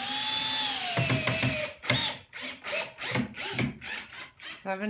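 Cordless drill-driver driving a screw into a wooden panel: the motor whines under load, then the clutch ratchets in a rapid run of clicks as the screw seats.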